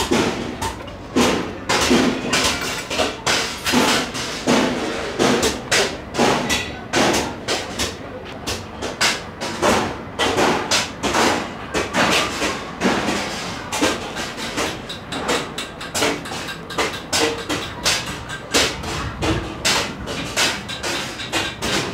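Workshop din of irregular knocks and thuds, several a second, with people talking underneath.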